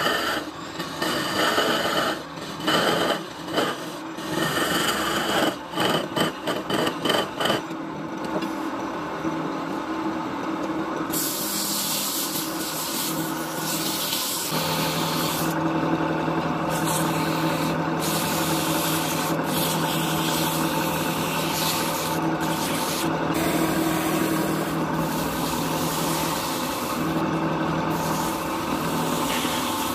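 Wood lathe spinning a turned wooden vessel while it is sanded by hand. For the first several seconds the rubbing comes in short, repeated strokes. After that it is a continuous rub over the lathe motor's steady hum.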